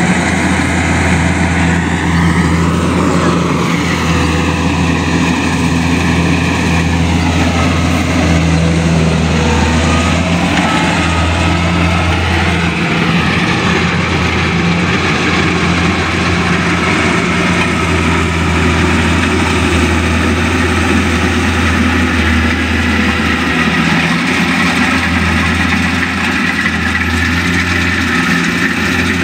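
Kubota combine harvester's diesel engine running steadily with a deep, constant hum as the machine cuts rice, its mechanical noise filling the background.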